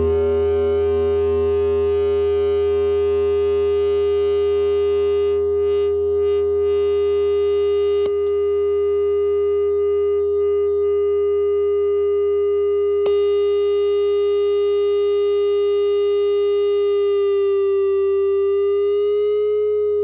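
Electric guitar through a high-gain metal distortion pedal, holding one long distorted note that sustains without dying away, with a slight bend and vibrato near the end. A steady low amp hum sits underneath, and two short clicks come about eight and thirteen seconds in.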